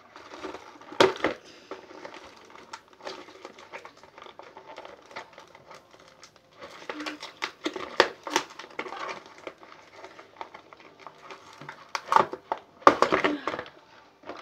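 Cardboard box and plastic packaging of a toy model horse being handled and pulled apart: irregular crinkling, rustling and small snaps, louder in bursts about a second in, around the middle and near the end.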